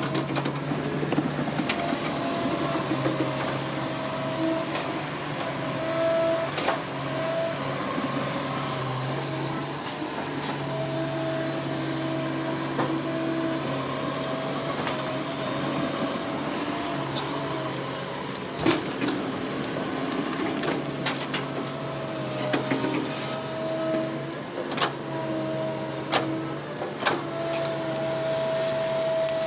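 Heavy earth-moving machine's diesel engine running, its pitch stepping up and down with the load, with scattered clanks and knocks throughout.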